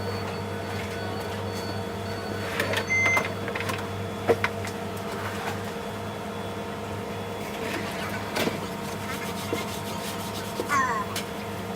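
Steady machine hum with a few scattered knocks and clicks, and a brief beep about three seconds in.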